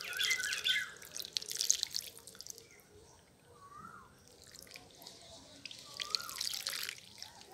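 Water splashing and dripping as a hand pats the flooded soil at the base of a potted jasmine plant, in two bursts: one at the start and one about three-quarters of the way in. A bird chirps a couple of times in between.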